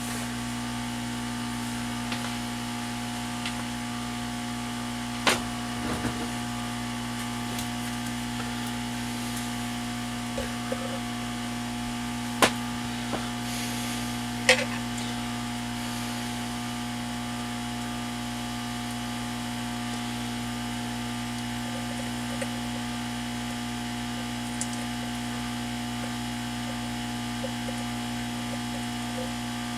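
Hot air rework gun's blower running steadily as it heats the board to desolder a transistor, a constant electric hum. A few sharp ticks stand out over it, three of them clearly.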